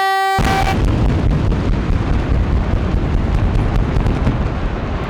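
The last blast of a warning horn cuts off about half a second in, and at once the explosive charges in the reinforced-concrete bridge piers detonate. The blast becomes a long, deep rumble that eases only slowly.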